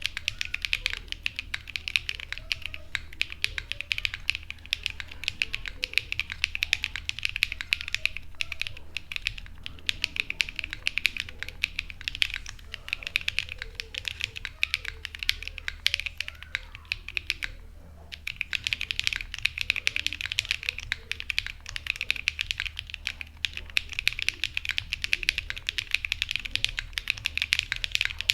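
Fast typing on a Matrixlab Magic3 60% WKL gasket-mount keyboard with Sarokeys BCP switches, a flex-cut aluminium plate and double-shot ABS cherry-profile keycaps: a dense run of crisp key clicks, with a brief pause a little past halfway.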